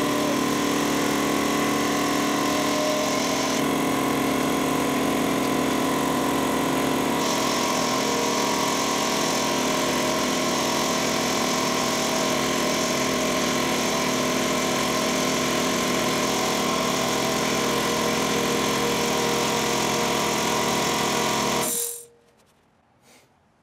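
Sanborn 60-gallon upright shop air compressor running steadily, its belt-driven pump and electric motor charging the tank after a check-valve and transfer-tube repair. It shuts off abruptly near the end.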